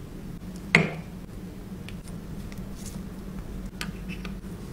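A miniature spoon taps once against a small metal wok, a sharp click with a short ring about a second in. A few faint light clicks of small utensils and dishes follow over a low steady hum.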